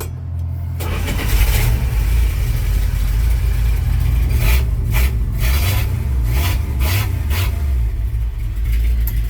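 Dodge slant-six engine starting about a second in and then running steadily. The truck had a no-start fault, and it now starts on freshly fitted distributor cap, rotor, plugs and wires.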